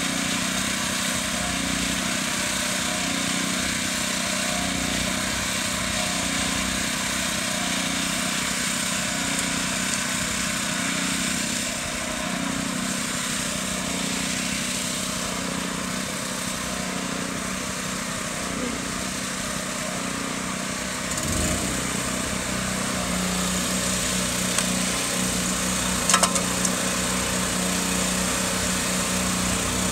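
Small engine of paving equipment running steadily. The engine note changes abruptly about 21 seconds in, and a few sharp knocks come near the end.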